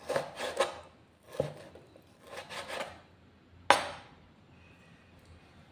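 Kitchen knife slicing raw meat on a plastic cutting board: short bursts of quick cuts and taps, then one sharp knock of the blade against the board, after which the cutting stops.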